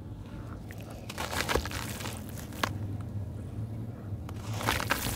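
Gritty sand-cement chunks crumbling onto a wet pile, in crackly bursts: a cluster about a second in, a single click midway, and another cluster near the end.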